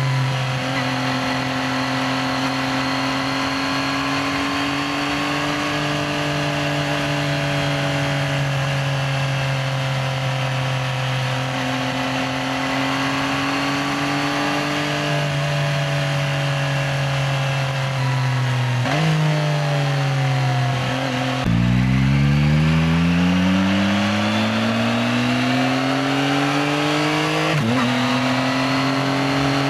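Yamaha XSR900's 890 cc inline-three engine under way: it holds steady revs at cruising speed, changes gear about 19 seconds in, then drops to low revs and climbs steadily as the bike accelerates, with an upshift near the end before settling into steady running again.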